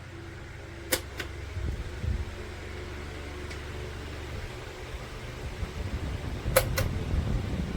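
Electric wall fan running, with a low steady hum that turns into an uneven, gusty rumble. Two quick pairs of sharp clicks, about a second in and again near the end.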